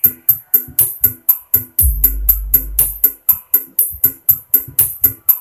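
Electronic dance music with a fast drum-machine beat and keyboard chords, played loud through a speaker cabinet with a satellite speaker. The cabinet is driven by a power amplifier wired conventionally, one channel to one speaker, not bridged (non-BTL). A deep bass note comes in about two seconds in and holds for about a second.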